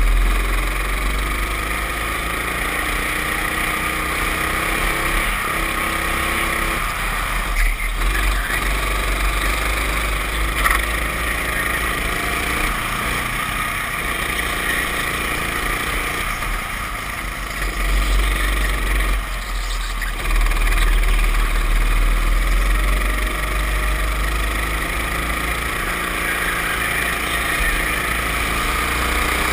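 Racing kart engine heard onboard, running at speed, easing off briefly about a quarter of the way in and again about two-thirds in, then picking back up.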